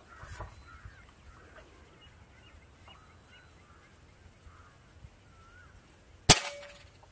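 A single shot from a .177 air rifle about six seconds in: one sharp crack that dies away within half a second, with a brief ring in its tail.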